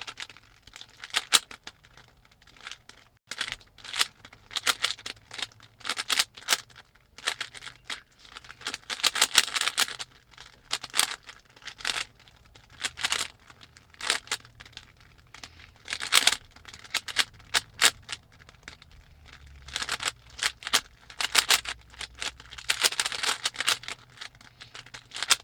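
A Rubik's cube being turned rapidly during a speedsolve: bursts of quick plastic clicking and rattling from fast layer turns, broken by short pauses between move sequences.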